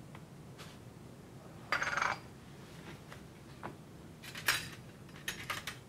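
Kitchen utensils and dishes clinking and knocking together. There is a short clatter about two seconds in, a couple of light clicks, then a run of sharper clinks near the end.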